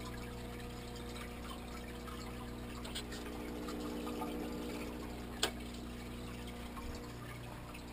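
Aquarium filter running: a steady pump hum with water pouring and trickling. A single sharp click about five and a half seconds in.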